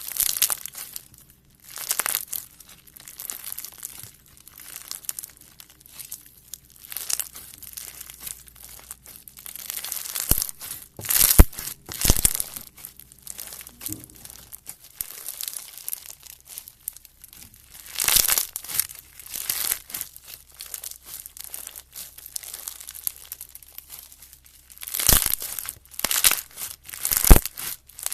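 Slime being squeezed, stretched and poked by hand, making irregular crinkling, crackling sounds, with sharper loud pops about eleven, eighteen, twenty-five and twenty-seven seconds in.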